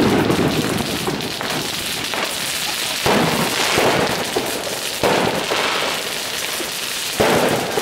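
Fireworks going off in succession. Each volley starts suddenly and crackles on densely, and fresh ones break in about three, five and seven seconds in.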